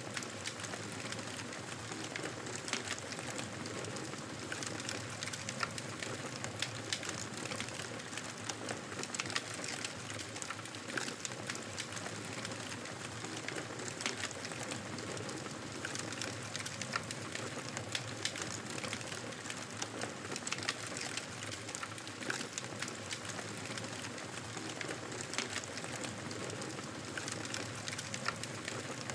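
Campfire burning with a steady hiss, broken by frequent small, sharp crackles and pops.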